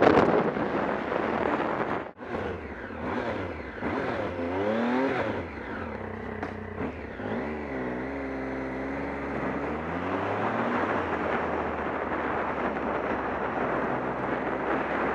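Motorcycle riding at speed, recorded on a camera microphone with heavy wind noise. The engine's pitch rises and falls through gear changes between about four and eleven seconds in, under a constant wind rush.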